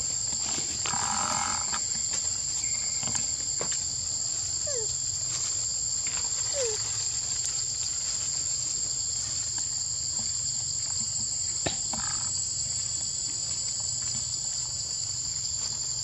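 Steady high-pitched drone of a chorus of insects, unbroken throughout.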